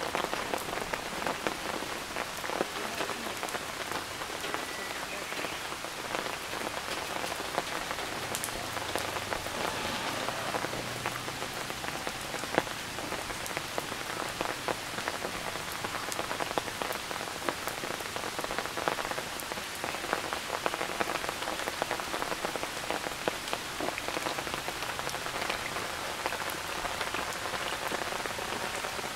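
Steady rain falling, with a dense pattering of raindrops and many small sharp drips scattered through it.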